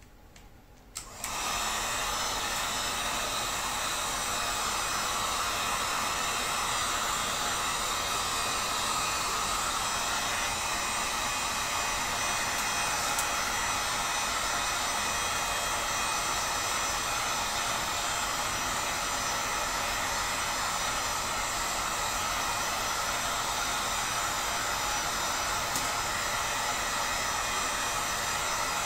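Electric heat gun switched on about a second in, its fan blowing with a steady rush and a faint whine throughout, heating a PVC bow limb to soften it for bending.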